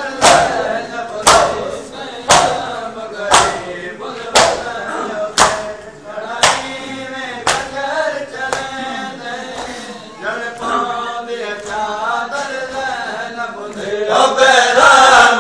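Crowd of men chanting a noha (Shia lament) in unison while performing matam, beating their chests with their hands, the slaps landing together about once a second. The slaps fade out about halfway through while the chanting carries on, growing louder near the end.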